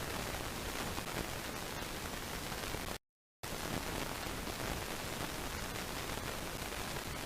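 Steady, even hiss of static from a nest camera's audio feed, cut by a brief dropout to total silence about three seconds in.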